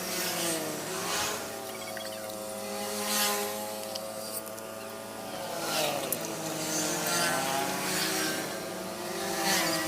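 Motor vehicle engines passing and revving, with several overlapping engine tones rising and falling in pitch.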